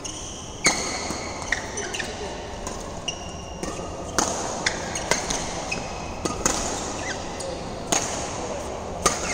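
Badminton rackets striking a shuttlecock back and forth in a doubles rally: sharp smacks about every second, echoing in a large hall, with short squeaks of shoes on the court floor between the shots.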